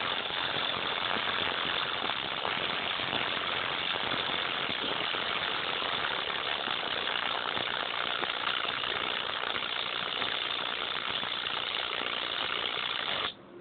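Bare headphone driver being overdriven with music, giving out a loud, harsh, heavily distorted noise with no clear tune. It cuts off suddenly near the end.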